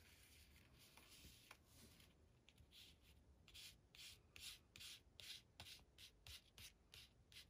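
Faint, quick strokes of an alcohol marker's brush tip rubbing along a ribbon laid on paper as the ribbon is colored. The strokes are sparse at first and then come about three a second from about a third of the way in.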